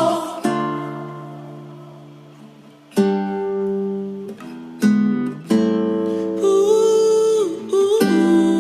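Music: strummed acoustic guitar chords, each left to ring and fade, the first about half a second in and the next about three seconds in, then more closely spaced.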